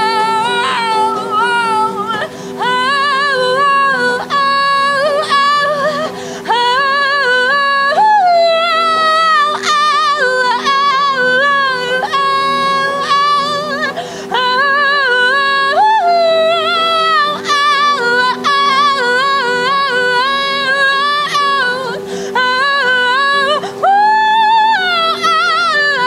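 A woman singing a wordless, wavering melody live, holding and sliding between long notes, over a steady held drone.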